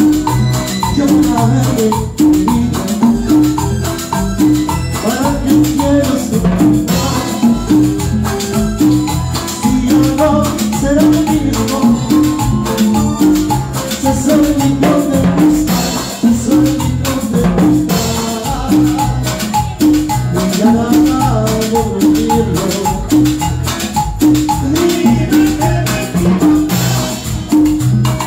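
A live band plays an instrumental passage of Latin dance music: a keyboard melody over a steady bass and percussion beat, with a few cymbal crashes.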